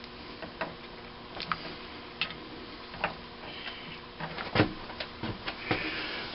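Irregular light clicks and knocks of a greased connecting-rod bearing cap and its shims being worked onto the rod bolts inside a cast-iron engine crankcase, with one sharper knock about four and a half seconds in.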